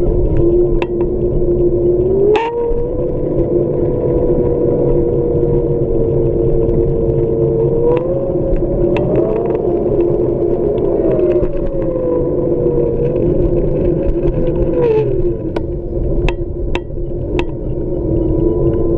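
Xiaomi M365 electric scooter's hub motor running with a whine whose pitch rises and falls slowly over a rumble, broken by scattered sharp clicks. The owner calls it a strange noise from the motor.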